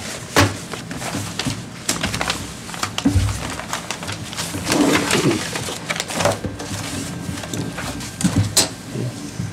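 Bid envelopes being opened and papers handled on a table near the microphones: paper rustling with scattered sharp clicks, and a dull knock about three seconds in.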